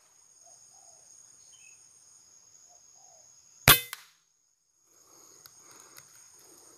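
Insects droning steadily in a high, thin pitch, with faint short calls under them. About halfway through comes a single loud, sharp crack with a brief ring, followed by a sudden cut to silence before the insect drone returns.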